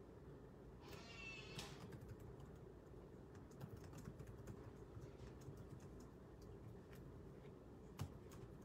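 Faint typing on a computer keyboard: irregular, scattered key clicks, with one sharper click near the end.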